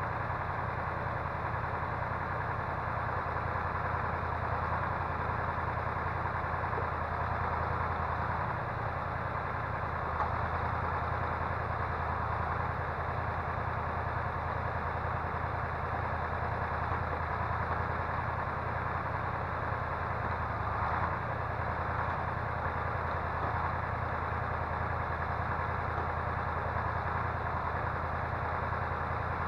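Timber truck's engine running steadily under the loader crane, an even low hum with no distinct events.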